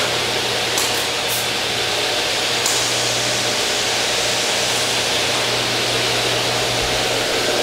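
The 1.5-horsepower Baldor motors of a CTD D22 double-head miter saw running with the blades spinning free, no cut: a steady whir with a low hum. A few short sharp clicks come in the first three seconds.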